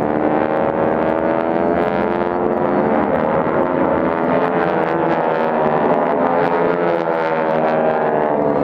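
Several North American T-6 Texans' nine-cylinder radial engines and propellers droning together in formation flight. It is a steady, loud drone of many tones whose pitch wavers slightly.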